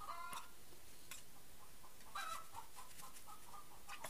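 Faint clucking of hens in the background: short calls at the start, about two seconds in and near the end. Between them come a few soft clicks from a metal spoon and a plastic bag as chickpeas are spooned in.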